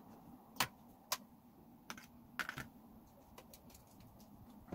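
Irregular light clicks and taps, about half a dozen in the first three seconds, the sharpest one early and a quick cluster of three a little before halfway, as of small hard plastic or metal parts being handled.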